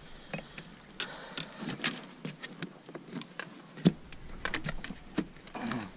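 Irregular clicks, knocks and rustles of fishing gear being handled in a plastic kayak, with one sharper knock about four seconds in.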